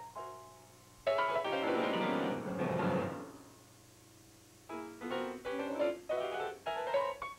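Solo piano accompaniment to a silent comedy: a loud run of notes sweeping downward about a second in, a brief lull, then short detached notes climbing in pitch near the end.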